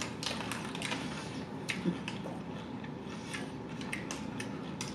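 Chewing a bite of spicy fried chicken, the crispy breading crunching in a run of irregular sharp clicks.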